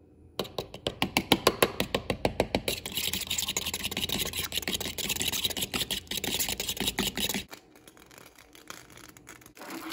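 Raw eggs being beaten with a fork in a ceramic bowl: rapid, regular clicks of the fork striking the bowl, about six a second, becoming a denser, continuous clatter and scraping before stopping abruptly about seven and a half seconds in.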